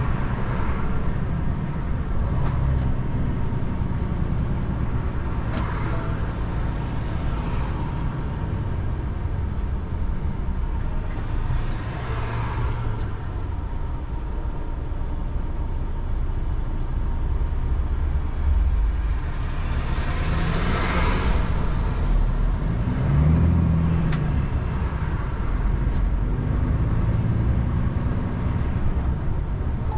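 Car driving on a wet road in the rain: steady engine and tyre rumble with an even hiss of spray, swelling a few times and loudest about two-thirds of the way through.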